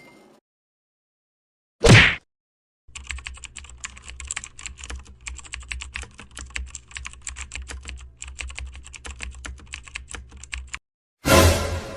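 Rapid typing on a keyboard: a dense, irregular run of key clicks lasting about eight seconds over a low steady hum. A short loud burst comes about two seconds in, and another just before the end.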